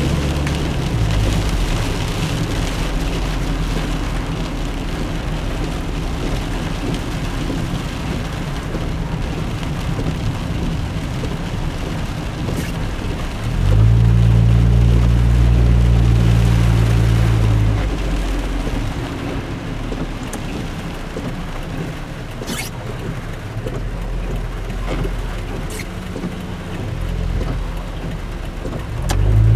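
Rain and wet-road tyre noise heard inside a car driving on a rain-soaked highway. A low rumble swells for a few seconds about halfway through. A few sharp clicks come through here and there.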